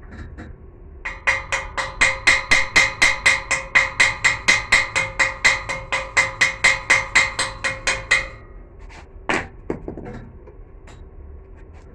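A hammer striking steel in a steady run of blows, about four a second, each ringing with a metallic tone, stopping after some seven seconds. A few separate knocks follow.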